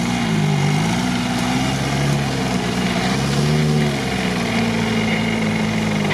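Suzuki Samurai's engine revving up and down while stuck in deep swamp mud, its pitch dipping and climbing several times as the driver works the throttle to drive out.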